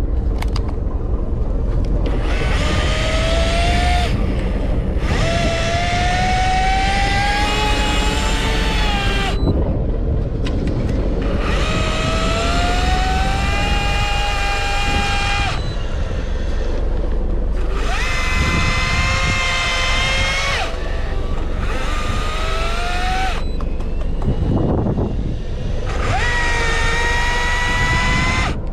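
Electric fishing reel motor whining in repeated spells of a few seconds, its pitch climbing slowly in each spell as line is wound in. A boat engine rumbles steadily underneath.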